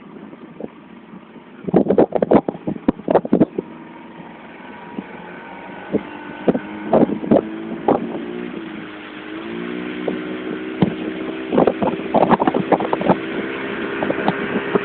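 A motor engine running steadily, growing louder and stepping up in pitch about nine seconds in as it speeds up, with clusters of sharp knocks and clatter near the start and again near the end.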